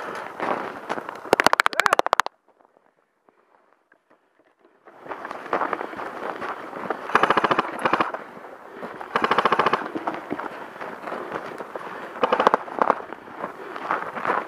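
Airsoft rifles firing several rapid full-auto bursts of clattering shots, the first just over a second in. After a near-silent stretch of a couple of seconds, three more bursts follow.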